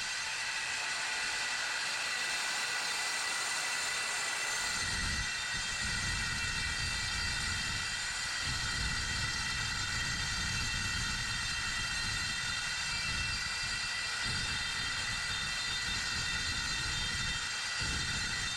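Evolution S185CCSL 7¼-inch metal-cutting circular saw running under load, its blade cutting a long continuous cut through 1/4-inch mild steel plate: a steady high whine, with a lower rumble joining about five seconds in.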